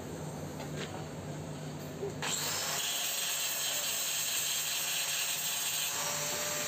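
Small angle grinder grinding a steel pipe socket joint: it starts suddenly about two seconds in and carries on as a steady, loud hiss.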